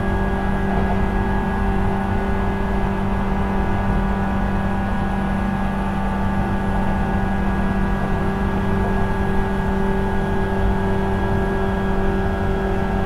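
JR 475 series EMU heard from the vestibule of its motor car: the MT54 DC traction motors and 19:80 reduction gears whine at a steady pitch over the rumble of wheels on rail, with the train running at a steady speed.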